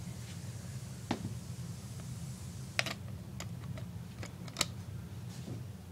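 A few light, scattered clicks and taps of toy food pieces being handled and put together, over a steady low hum.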